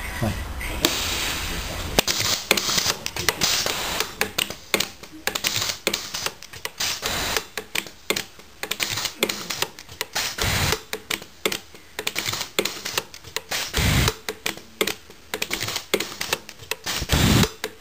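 SSG-V micro TIG soldering machine firing repeated spot-weld pulses, a rapid, irregular series of sharp snapping clicks, several a second, after a steady hiss at the start.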